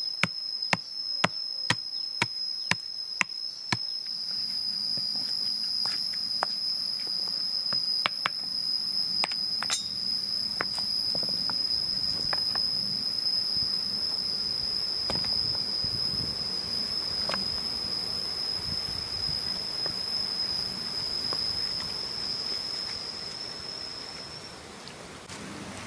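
A pestle strikes chili in a stone mortar about twice a second, stopping about four seconds in. Then comes a soft rustle with a few knocks as hands rub chili paste into raw beef ribs in a pan. A steady high-pitched insect drone runs underneath and stops near the end.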